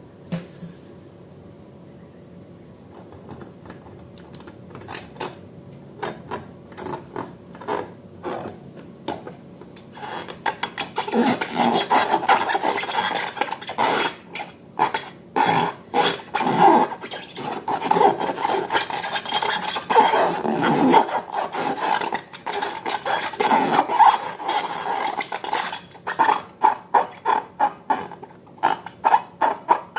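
Slime being stirred in a container, a utensil scraping and clicking against it. Sparse taps at first, then continuous mixing from about a third of the way in, ending in quick regular strokes.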